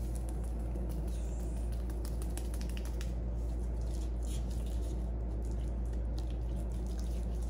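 Seasoning shaken and tapped from a small packet onto a tray of beef ribs, the grains pattering faintly, with a hand rubbing the meat; faint scattered ticks and rustles over a steady low hum.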